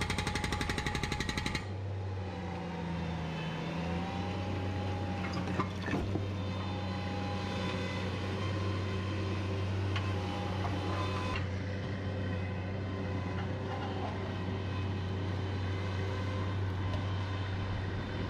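Hydraulic breaker on a mini track loader hammering concrete in a rapid, even rattle for about the first second and a half, then the loader's engine running steadily, its pitch dipping and rising a few seconds in, with a few knocks of broken concrete.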